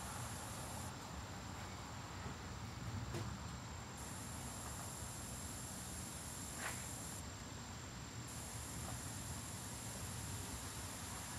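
Steady outdoor ambience of insects buzzing in a continuous high drone over a low, even background rumble, with two faint ticks about three and six and a half seconds in.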